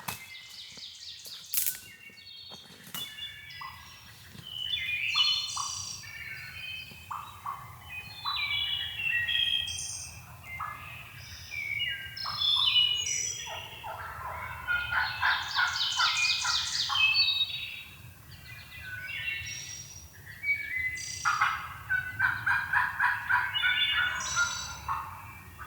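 Wild turkeys gobbling in long rapid rattling bursts, mixed with songbird calls, after a few sharp clicks at the start.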